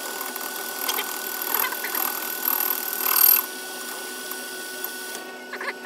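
Metal lathe running, with the audio sped up, as a cutting tool turns the wheel of a 5-inch-gauge locomotive wheelset. A steady machine noise carries scraping bursts from the cut, loudest about three seconds in, and stops abruptly at the end.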